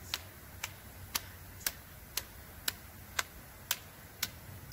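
Metronome clicking steadily at about two beats a second, around 120 beats per minute, keeping tempo for colour guard rifle basics.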